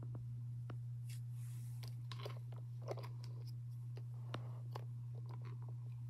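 Windmere DF-7 7-inch table fan running with a steady low motor hum, with irregular clicks and crackles over it, the loudest about three seconds in.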